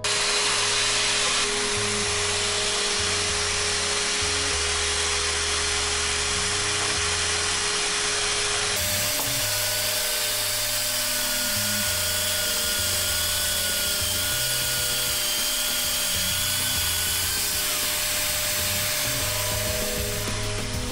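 Desoutter SETITEC pneumatic advanced drilling unit running and drilling, a steady loud hiss with a machine whine. About nine seconds in the tone changes, and a higher whine comes in for several seconds. Background music plays underneath.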